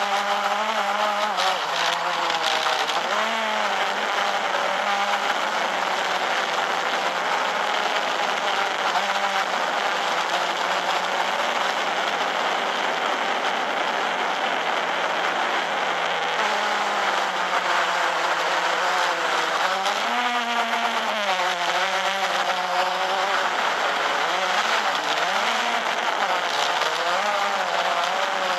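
Quadcopter drone's electric motors and propellers whining steadily, the several rotor tones wavering up and down in pitch as the motors change speed in flight.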